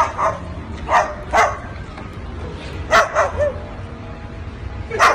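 Parrot imitating a dog's bark: short, loud barks in twos and threes at the start, about a second in, around three seconds in and again near the end.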